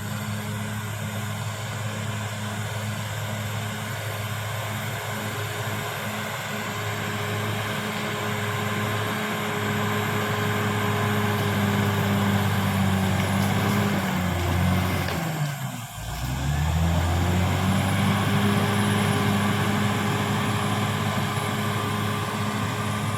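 Caterpillar D6R XL bulldozer's diesel engine running steadily. About sixteen seconds in, its pitch dips sharply and the sound drops for a moment, then it comes back up to speed within a second or so.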